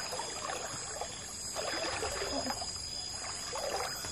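Legs wading through shallow river water: irregular sloshing and swishing.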